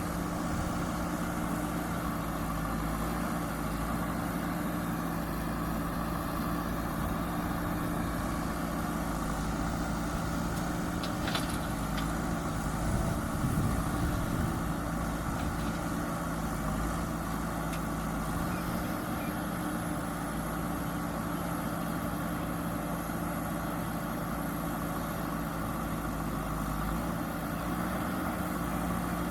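Backhoe loader's diesel engine running at a steady speed, with a couple of faint clicks about eleven seconds in.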